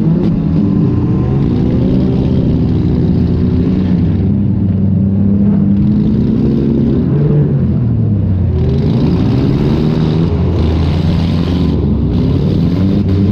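Demolition derby car's engine heard from onboard the car, revving up and falling back again and again as it accelerates and backs off.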